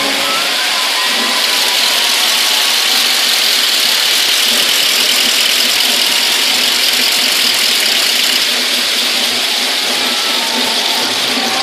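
Steady applause from a large audience, a dense even clatter of many hands with no music under it.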